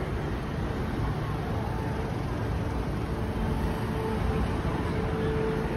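Steady city street noise: a constant low rumble of traffic, with faint held tones from distant voices or sound carrying across the plaza.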